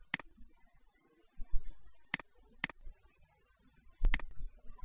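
Computer mouse button clicking: a few sharp, separate clicks spread out, with a quick double click near the end, as an object is selected and dragged in a drawing program. Faint low bumps from the desk or mouse handling sit between them.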